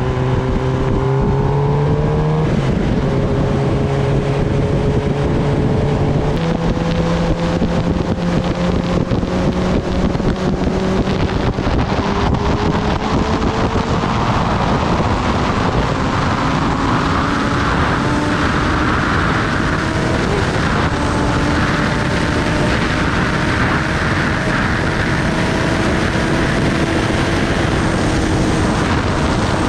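Kawasaki Ninja ZX-10R's inline-four engine pulling at speed, dropping in pitch with an upshift about two and a half seconds in, then rising slowly as the bike accelerates. Wind rush on the microphone grows louder in the second half.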